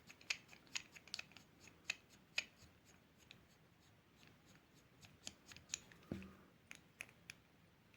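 Faint, scattered light clicks and taps of small metal parts being handled: a push-pin watch-link removal tool and a stainless steel watch bracelet. The clicks come thickly for the first couple of seconds, then a few more follow after a pause.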